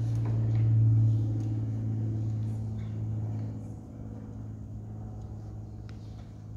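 String orchestra holding one long low note, which softens about three and a half seconds in and carries on quietly.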